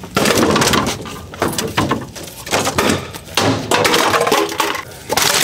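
Sledgehammer blows smashing old wooden furniture apart: repeated heavy hits with wood cracking and splintering.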